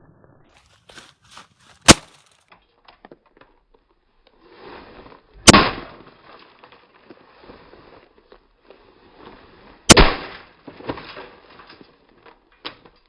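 Three hard blows striking a box fan, about four seconds apart, each a sharp crack, with smaller knocks and rattles in between.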